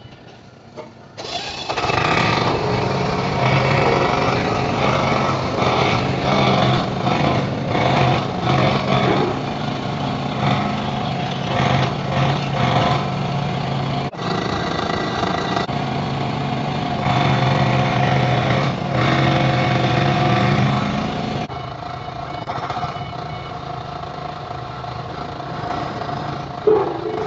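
Excavator engine running, its level and pitch wavering as it works. The sound comes in sharply about a second in and drops to a lower, steadier level around three quarters of the way through.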